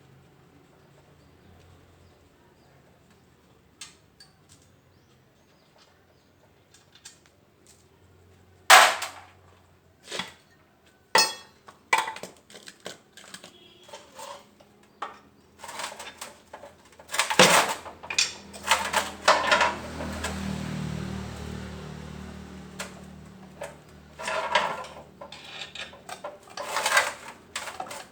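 Metal tools and gearbox parts clanking and clinking at irregular intervals, the loudest a sharp clank about nine seconds in. A low hum runs for a few seconds past the middle.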